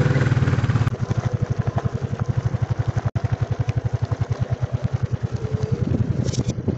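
An engine idling with a steady, rapid low beat of about ten pulses a second.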